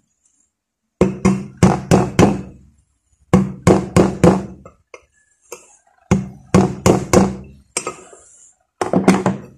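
Quick metallic taps in four bursts of three to five strikes each, every strike with a short low ring: a tool driving the metal bushing retainer into an electric fan's motor housing, tapped around its edge so the bushing seats evenly.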